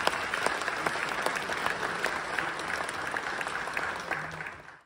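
Audience applauding after a live band performance, with dense, steady clapping that fades out just before the end.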